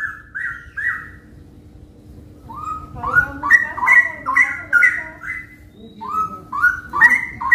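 Caged straw-headed bulbuls (cucak rawa) singing loud, rich whistled phrases made of quick rising notes. One short phrase is followed by a pause of about a second, then longer runs of notes with birds answering one another.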